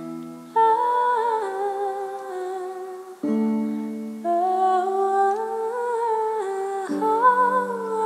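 Electronic keyboard playing held chords that change twice, about three and a half seconds apart, while a woman sings the melody over them.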